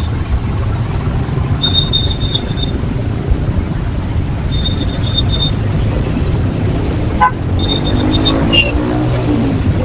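Train passing over a level crossing: a steady heavy rumble of wheels on the rails, with a brief high-pitched wheel squeal three times, about two, five and eight seconds in.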